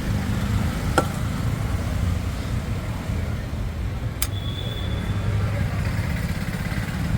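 Steady low rumble of street traffic, with two sharp clicks, about a second in and about four seconds in, the second followed by a brief high-pitched tone.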